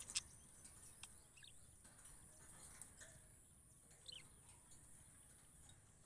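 Budgerigars giving a few faint short chirps, one about a second and a half in and another about four seconds in, over a steady high-pitched hiss. A couple of sharp clicks come right at the start.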